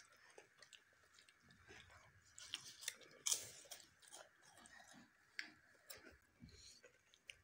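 Faint crunching and chewing of crisp fried papad, with scattered small crackles and clicks.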